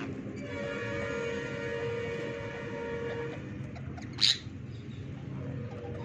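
A horn sounds one steady two-note chord for about three seconds over a constant low rumble. A little over four seconds in comes a single short, shrill rose-ringed parakeet squawk, the loudest sound here.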